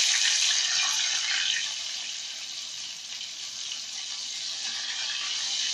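Flour-coated chicken pieces sizzling and bubbling in hot oil in a frying pan as more pieces are lowered in. The hiss is loudest at first, eases a little about halfway, then holds steady.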